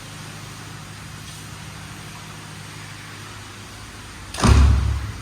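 A steady low hum, then about four and a half seconds in a brief loud rushing blast, heaviest in the low end, that fits wind hitting the microphone.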